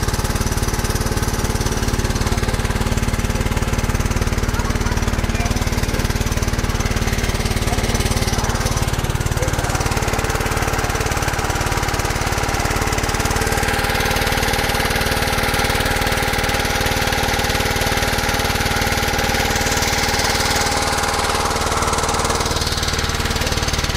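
Stern-mounted single-cylinder diesel engine driving a long-tail boat propeller, running steadily with a fast, even chugging beat. It settles to a slightly lower note about ten seconds in.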